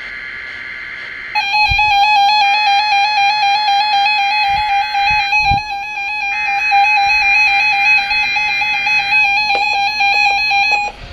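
Weather alert radio's alarm going off during the weekly warning-alarm test: a loud, buzzy, rapidly warbling electronic tone that starts suddenly about a second and a half in and keeps sounding.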